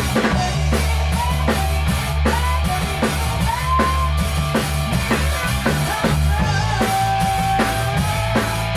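Rock band playing in rehearsal: a drum kit keeps a steady beat under held bass notes, with a lead line of sliding, bending notes over the top.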